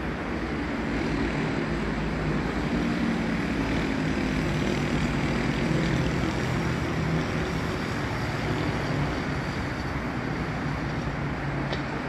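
Steady city traffic noise from a multi-lane avenue, with a low engine hum that swells a little through the middle.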